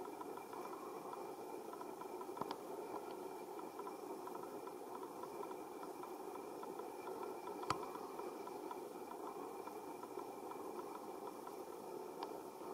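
Steady outdoor background hum with no clear source, broken by three short faint clicks; the sharpest comes about halfway through.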